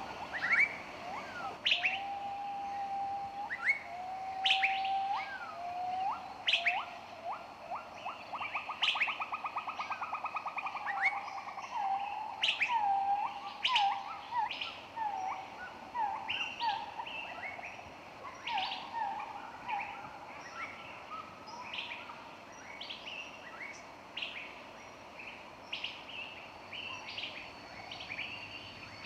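Several wild birds singing and chirping together: quick, sharp high chirps run throughout. In the first two-thirds, lower whistled notes, a fast rattling trill and a string of short slurred phrases join them.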